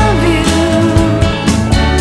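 Pop song recording: a held sung note that dips and then steadies, over a band with regular drum hits and a steady bass line.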